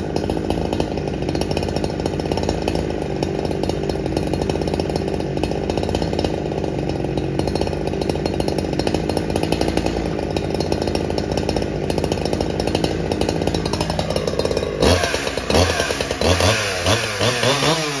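Chainsaw running steadily at high speed, then, about fifteen seconds in, revved in a string of short throttle bursts that rise and fall in pitch.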